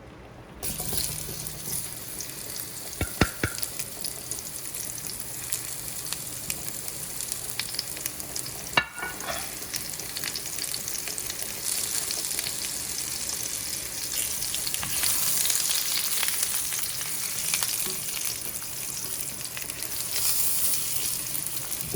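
Chopped beets sizzling in hot olive oil in a frying pan, the sizzle starting suddenly about half a second in as they hit the oil and running steadily on. A few sharp knocks sound about three seconds in and again near nine seconds.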